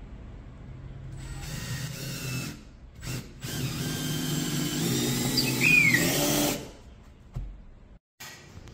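Power drill running in two bursts, a short one of about a second and then a longer one of about three seconds, its pitch sliding as it loads and eases off.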